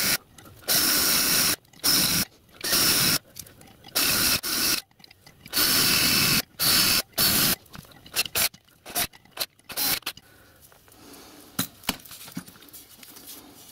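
Battery drill driving a small angle-drill countersink bit, run in about a dozen short bursts as each rivet hole in the steel smokebox shell is countersunk, fast-forwarded so each run is a brief hiss. The bursts grow shorter about two-thirds of the way in and give way to faint handling noises near the end.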